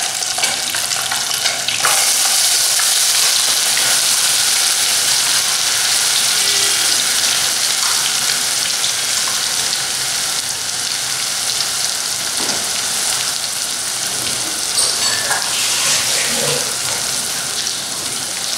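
Hot oil and melted milk cream sizzling in a metal pot as a wet paste of dry coconut, ginger, garlic and onion goes in. The sizzle gets louder about two seconds in and stays loud, with a few stirring scrapes and knocks against the pot.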